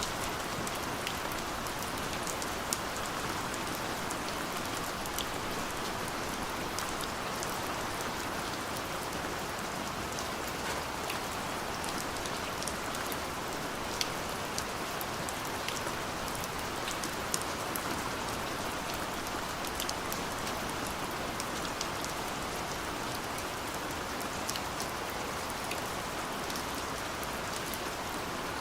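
Steady rain falling, a continuous even patter with scattered sharper drop hits standing out here and there.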